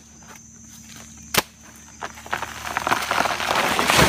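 An inedible wild banana plant being cut down with a bladed tool: one sharp chop about a second and a half in, then a growing rustle and crackle of leaves and stalk that peaks near the end.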